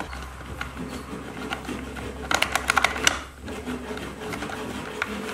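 Light clicks and taps from a screwdriver and hands working the plastic housing of a Stihl trimmer while its carburettor adjustment screws are set, with a cluster of sharper clicks about two to three seconds in. A steady low hum runs underneath.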